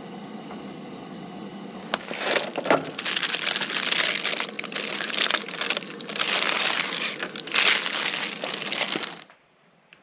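Plastic packaging crinkling and crackling as a stack of hard taco shells is unwrapped and handled. It starts about two seconds in, goes on in irregular bursts, and cuts off suddenly near the end.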